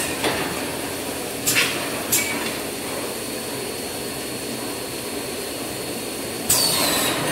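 Automatic paper core tube cutting machine running steadily with a thin high whine, with two short sharp noisy strokes about a second and a half and two seconds in, and a louder noisy burst with a falling high tone near the end.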